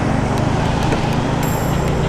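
Motor vehicle engine and road noise, a steady low rumble, heard while riding along. A thin high tone comes in about one and a half seconds in.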